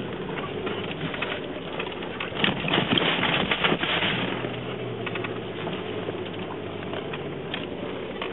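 Handling noise on a phone's microphone: rubbing and knocks, thickest about two to four seconds in, over a low steady hum that comes in about halfway through.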